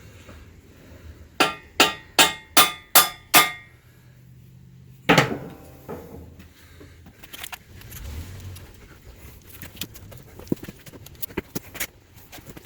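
Six evenly spaced, ringing metal strikes, about two a second, then a heavier metal clunk about five seconds in and scattered small clinks of hand tools and engine parts.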